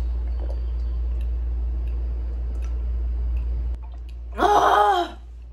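A steady low hum that cuts off suddenly a little past halfway, then a woman's short voiced 'ahh' of relief after drinking from a tumbler.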